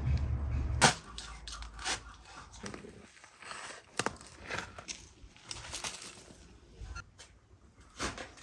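Shovel digging into soil: scattered crunches and scrapes as the blade cuts in and lifts earth. A low hum stops with a sharp knock about a second in.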